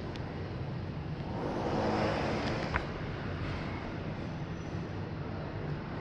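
Road traffic: a vehicle passes, its noise swelling and fading over about two seconds, over a steady low rumble, with one sharp click near the end of the pass.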